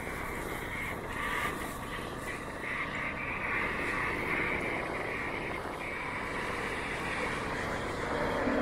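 Steady city background drone: a constant noisy rumble with no single sound standing out.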